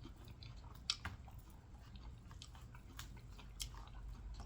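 A person chewing fried fish close to the microphone, soft and wet, with a few sharp mouth clicks about one and three seconds in.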